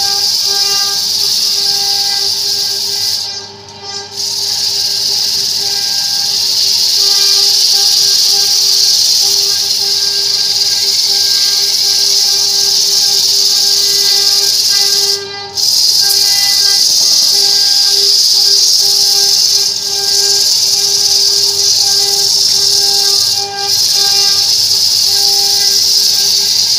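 Belt-driven disc sander grinding a piece of wood held against the spinning disc: a loud, steady hiss over the motor's even hum. The hiss drops away briefly a few times as the wood comes off the disc.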